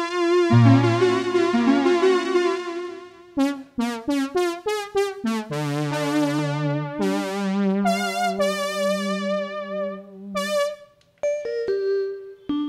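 Studiologic Sledge 2.0 synthesizer played with a vibrato patch: held chords over low bass notes, a quick run of short staccato notes about four seconds in, more held chords, then short plucked notes near the end.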